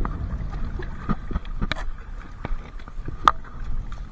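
Hands handling a mesh fish keeper net, giving scattered small clicks and rustles, with one sharp click about three seconds in, over a steady low rumble.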